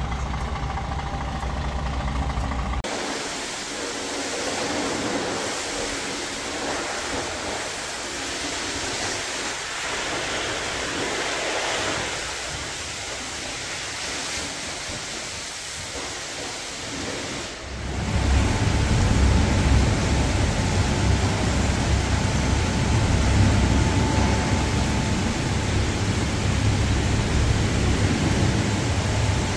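A DAF XF truck's diesel engine idling, which gives way after about three seconds to a steady rushing hiss. About eighteen seconds in, a louder low rumble with a steady whine takes over.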